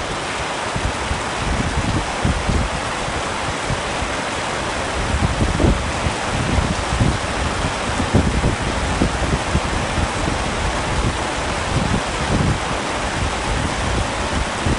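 Heavy rain on a tent: a dense, steady hiss with frequent irregular low thumps.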